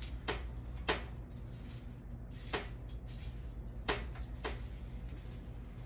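A utensil knocking and scraping against a pan as roasted vegetables and kale are stirred: about five separate knocks, irregularly spaced.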